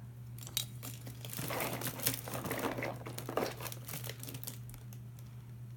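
Plastic wrapping crinkling and rustling as hands rummage through a box of small toys, busiest from about a second in until near the end.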